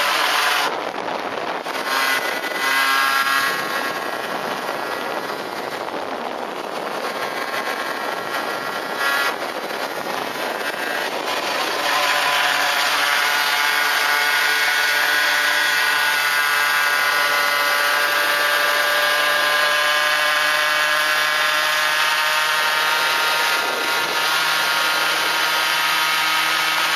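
Honda NS-1's 50cc two-stroke single-cylinder engine running under way with a buzzy note, its pitch shifting through the first twelve seconds or so. From about halfway it holds a louder, steady high-revving drone.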